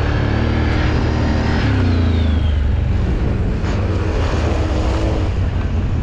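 Off-road vehicle engine running steadily under load, its pitch easing down about two seconds in, over a dense hiss.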